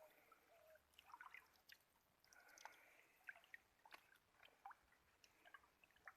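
Faint dripping and trickling of river water, with scattered soft drip sounds and small gurgles.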